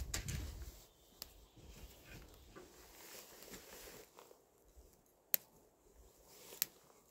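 Sharp little clicks and knocks of dry wooden kindling splinters being handled and set in a steel fire pit, a few isolated ones, two of them louder near the end. A low rumble fades out about a second in.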